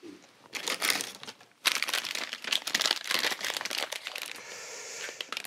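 Plastic parts packaging crinkling and rustling as it is handled, in short bits at first and then continuously from about a second and a half in.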